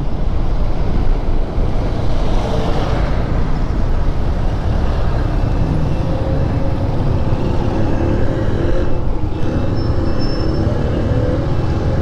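Honda Dio 110 cc scooter being ridden through town traffic: its small single-cylinder engine running steadily under a heavy rumble of road and wind noise on the camera microphone.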